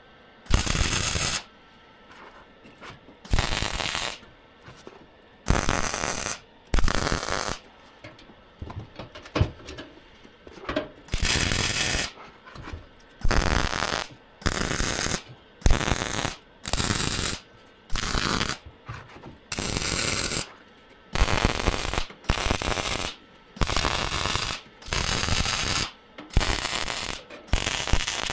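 Welding arc crackling in about twenty short bursts of around a second each, with brief pauses between: a run of stitch or tack welds on steel.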